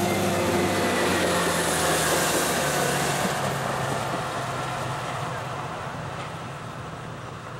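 Train passing at speed: its engine note slides down in pitch as it goes by, and the rumble grows to a peak about two seconds in, then fades away.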